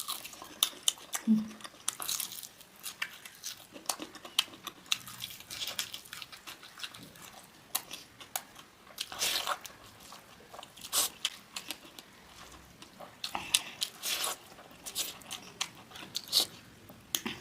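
A person eating close to the microphone: biting and chewing food, with many short, sharp crunches and wet mouth clicks at an irregular pace.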